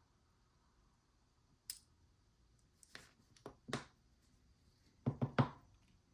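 Small, sharp metal clicks and taps from the parts of a gutted ABUS 72/40 padlock as its springs and pins are taken out: a single click near two seconds in, a few more around three seconds, and a quick run of three near five seconds.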